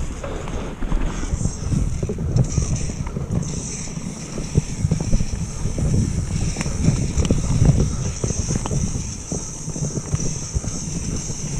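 Wind buffeting a helmet or bike-mounted camera microphone as a mountain bike descends a downhill trail, with the bike rattling and knocking over rough ground.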